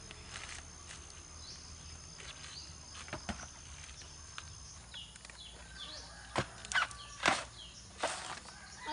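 Sharp knocks and thuds of whole coconuts being handled and struck in a heap, a few single knocks and then a quick run of louder ones over the last few seconds. Small birds chirp faintly.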